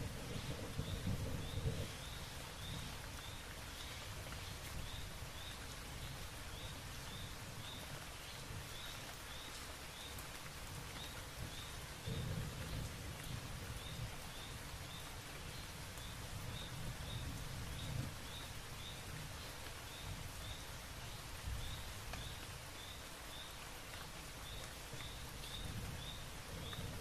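Steady rain hiss with a low, rolling rumble underneath, and runs of a short high chirp repeating two or three times a second.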